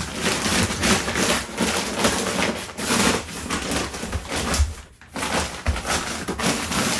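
Kraft-paper facing of fiberglass insulation batts rustling and crinkling as it is pressed and tucked into wall stud bays, with a brief lull about five seconds in.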